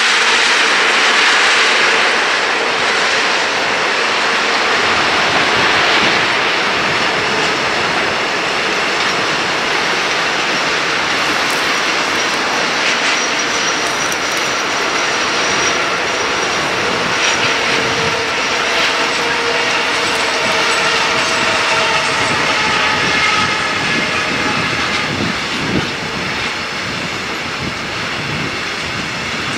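Long container freight train rolling past: a steady rush and rumble of wagon wheels on the rails with clatter over the joints, and thin high squealing tones from the wheels.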